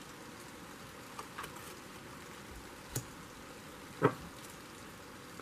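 Faint steady background hiss with a few soft taps, the clearest about three and four seconds in, as tarot cards are handled and set down on the cloth-covered table.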